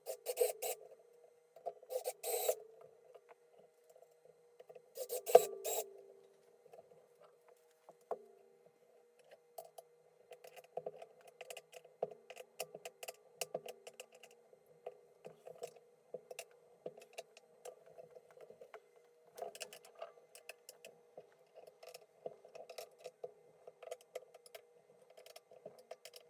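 Skate-tool screwdriver turning wood screws through plastic skateboard rails into the wooden deck: a run of small rasping, creaking ticks, with a few louder scrapes in the first six seconds.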